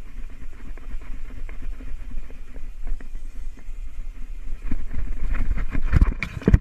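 Rumbling, scraping handling noise on the camera microphone with scattered clicks, growing louder after about five seconds. A few heavy knocks come near the end as the camera tips up toward the sky.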